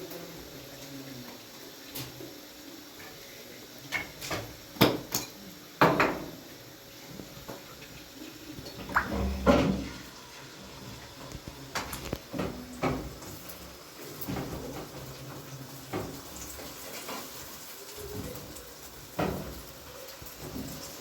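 Irregular knocks and clatter of hard objects being handled, with clusters of louder knocks about four to six seconds in and again around ten seconds.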